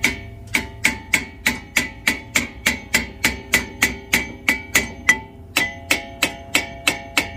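Hammer blows on a 2018 Dodge Charger brake rotor, about three a second, each a sharp metallic knock with a ringing tone after it. The hammering is to break loose a rotor that won't pop off the hub easily. The pitch of the ring shifts about five seconds in.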